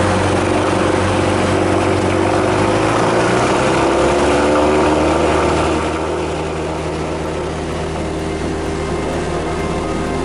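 Cessna 172 Skyhawk's piston engine and propeller running steadily at full takeoff power, heard from inside the cabin. It gets a little quieter about six seconds in.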